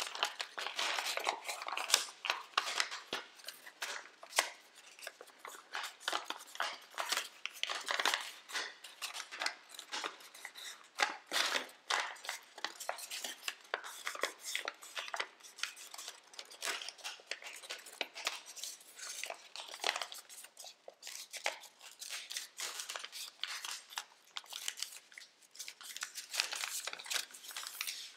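Tissue-foil origami paper rustling and crinkling as it is folded and creased by hand, with many short crisp crackles and sharp creasing strokes.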